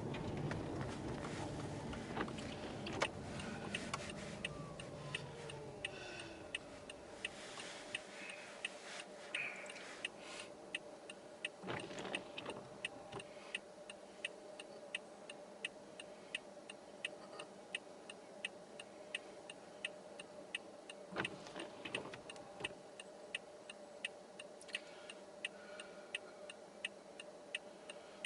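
Toyota Aqua hybrid slowing to a stop, a whine falling in pitch as the road noise dies away, then the car's indicator ticking steadily at about three clicks every two seconds, with a couple of soft thumps.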